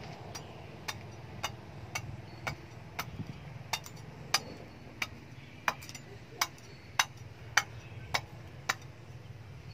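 Light metal-on-metal tapping on a billhook blade with a thin steel rod, about two taps a second, each with a short ring.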